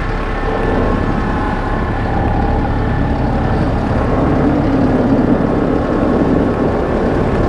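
Compact tractor engine running as the tractor drives over snow, with wind buffeting the microphone.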